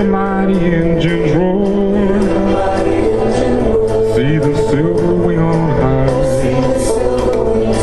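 Country-folk ballad music with guitar accompaniment and a gliding, bending melody line.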